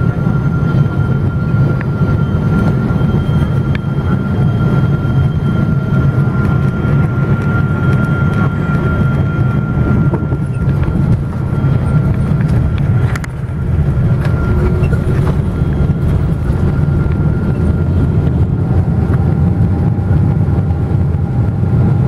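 Cabin noise of a Boeing 777-200 heard from a seat over the wing as the airliner rolls along the runway after landing: a steady low rumble from the engines and wheels, with a thin steady whine above it. The rumble dips briefly about thirteen seconds in.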